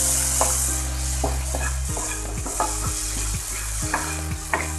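Wooden spatula stirring and scraping sliced okra around a hot oiled wok, with the okra sizzling. The sizzle is strongest in the first second, and the spatula knocks against the pan at a steady stirring pace.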